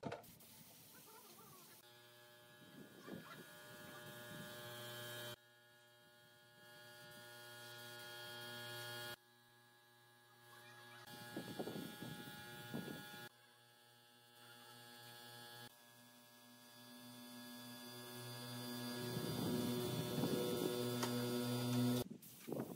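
Steady electrical hum with many even overtones, changing level abruptly several times at edit cuts, with a few short hisses from an air spray gun as it sprays finish onto a wooden chair.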